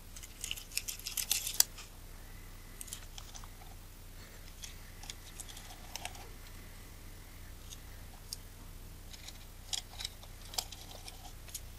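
Light metallic clicks and scrapes of a small screwdriver backing out the bayonet-mount screws of a Nikon Nikkor 85mm f/2 lens. A quick run of clicks in the first couple of seconds, scattered single ticks after, and a few more near the end.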